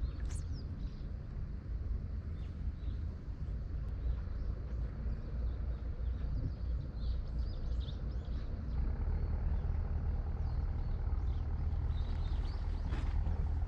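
Steady low outdoor rumble with faint, scattered high chirps, like small birds calling, through it.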